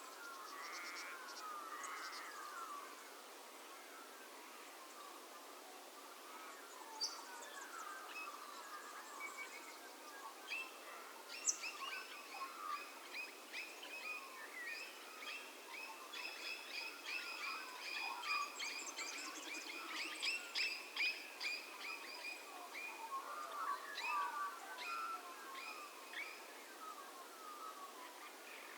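Birdsong in open bush: Australian magpies warbling near the start and again near the end, with a long run of rapidly repeated, ringing calls through the middle and scattered chirps from other birds.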